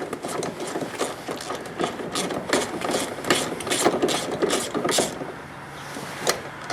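Ratchet wrench clicking in quick strokes as door hinge bolts are backed out. The clicking stops about five seconds in, with one more click near the end.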